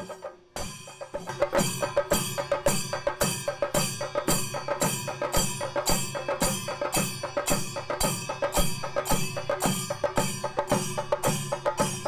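Chenda melam: several chenda drums beaten with sticks, with hand-held ilathalam cymbals ringing over them. After a short break the beat starts about a second in and then keeps up a steady, fast pulse.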